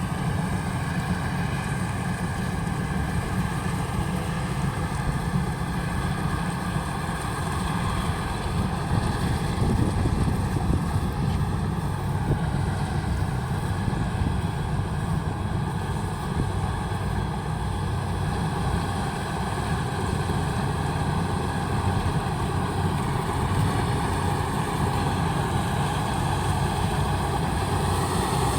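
Kubota combine harvester running steadily, with the constant low sound of its engine under way.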